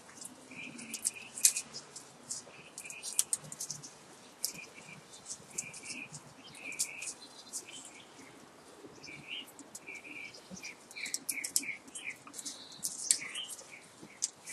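Clicks and scrapes of copper magnet wire being handled and pushed into the slots of an electric motor stator during rewinding, with short high chirps repeating throughout.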